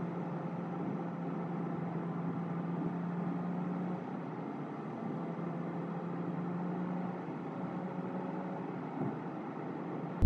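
Steady in-cabin noise of an automatic car driving along a road: road and engine noise with a steady low hum that weakens about seven seconds in.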